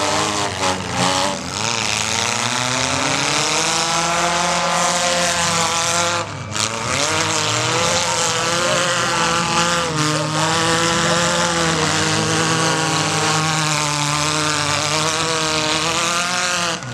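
Several small-car engines running and revving at the same time, their pitches rising and falling against a steady din, with a brief drop in the noise about six seconds in.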